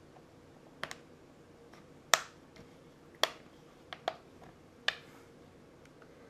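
Plastic snap clips of a laptop screen bezel clicking loose one after another as a plastic pry tool works along the seams, about seven sharp clicks at irregular spacing, the loudest about two seconds in.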